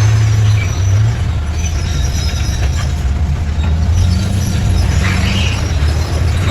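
Bulldozer's diesel engine running under load, its pitch dropping slightly about a second in, with metallic squealing and clanking from the steel tracks.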